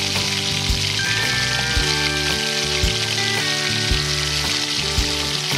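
Raw chicken wings sizzling in hot oil in a frying pan as they are laid in, a steady crackling hiss. Background music with a regular beat plays underneath.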